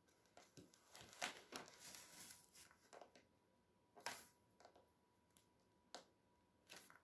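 Faint rustling and soft scraping of hands pressing and shaping plasticine on a tabletop. It comes in scattered bursts, densest in the first half, then a few short clicks near the end.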